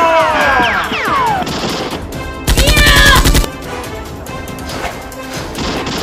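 Dubbed gunfire sound effect: a burst of rapid automatic shots, about ten a second for about a second, starting two and a half seconds in, over background music. Falling whistling tones sound in the first second and a half.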